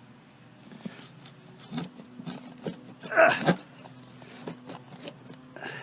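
Small items being handled and moved about in a scooter's glove compartment: scattered light clicks and knocks, with a louder rustling clatter about three seconds in.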